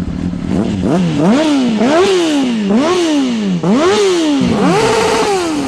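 Motorcycle engine being revved in several quick throttle blips, the pitch climbing and falling back each time; near the end it is held up briefly before falling away.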